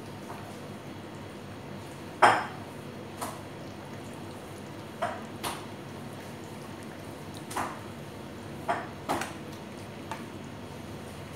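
Whole chicken and gloved hands knocking against a stainless steel mixing bowl while tandoori marinade is worked into the meat: about eight sharp clanks, the loudest a little over two seconds in, over a steady low hum.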